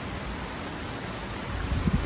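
Steady rain falling, heard as an even hiss, with irregular low rumbles of wind on the microphone that swell near the end.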